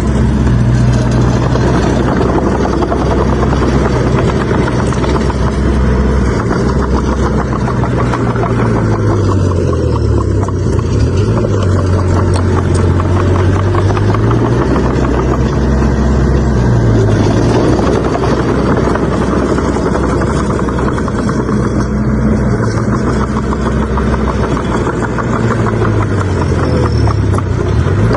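Bulldozer's diesel engine running hard, its note dropping and recovering a few times as it pushes soil.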